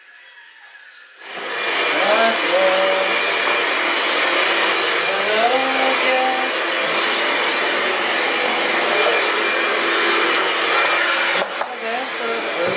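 A corded vacuum cleaner switching on about a second in and then running steadily, with a brief dip in level near the end.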